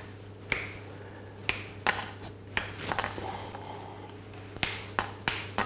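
A bar of 55% dark chocolate being snapped into small pieces by hand: a series of short, sharp snaps, irregularly spaced, over a low steady hum.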